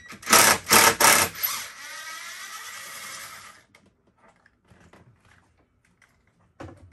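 Cordless drill-driver backing out a screw: three short, loud bursts, then a steady whirr for about two seconds as the screw spins free, ending a little past halfway, followed by a few light clicks.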